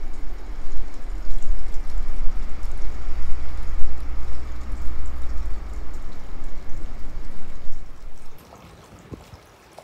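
Hot-spring water pouring steadily into an open-air bath, mixed with heavy wind noise on the microphone. About eight seconds in, the sound drops abruptly to a much quieter background.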